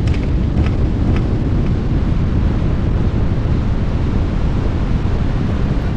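Wind buffeting the microphone, a loud, steady low rumble.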